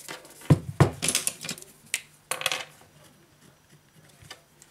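Smartphone being handled: two sharp clicks about half a second in, then a few short scraping rustles over the next two seconds.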